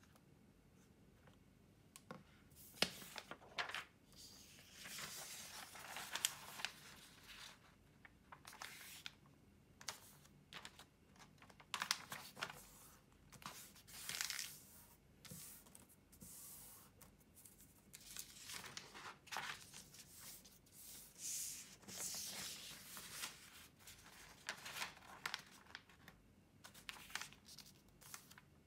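Origami paper being handled, slid and creased by hand on a wooden table: irregular rustling bursts with sharp crackles as a large sheet is folded in half diagonally. At first a marker writes on a small whiteboard.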